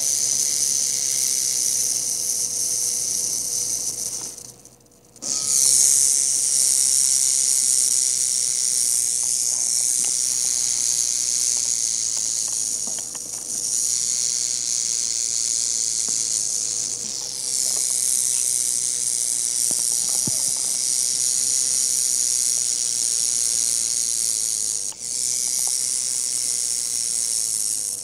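A rattlesnake's tail rattle buzzing: a loud, steady, high-pitched buzz that stops briefly about four and a half seconds in and dips a few more times before the end.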